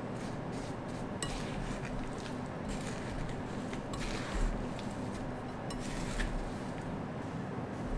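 Silicone spatula stirring chopped peaches and sugar in a glass bowl: steady scraping and churning, with scattered light knocks of the spatula against the glass.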